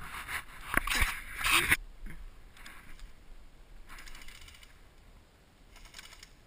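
Close rustle and clatter of gear and movement for the first couple of seconds, then three short, fainter rattling bursts of airsoft gunfire, the buzz of an electric airsoft gun's gearbox.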